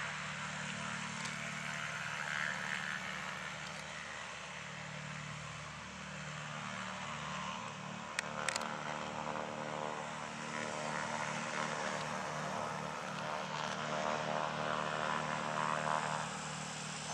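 Aircraft engines running, a steady hum made of several tones that begin to shift in pitch from about halfway through. Two brief sharp clicks come near the middle.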